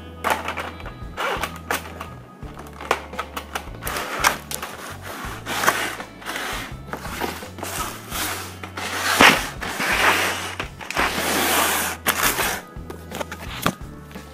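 A toy train set's cardboard box being handled and opened by hand: irregular taps, knocks and scraping, sliding rustles, the longest scrape about 11 seconds in. Background music with a steady bass line plays underneath.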